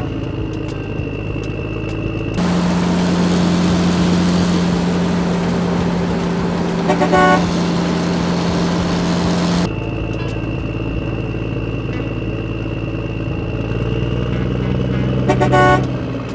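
Truck engine sound running steadily, with a high whine over it. For about seven seconds in the middle it gives way to a louder, hissing engine sound with a deep hum. A horn toots briefly about seven seconds in and again near the end.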